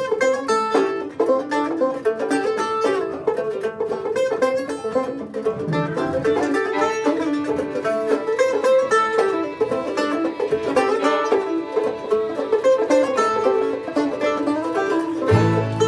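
Bluegrass string-band music: quick banjo and mandolin picking, with a low bass part coming in just before the end.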